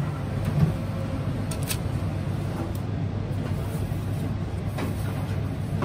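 Steady low machine hum, with a few light clicks or knocks.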